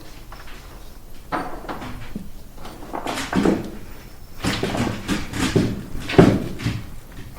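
Renovation work noise: a run of irregular knocks and thuds, the sharpest about six seconds in.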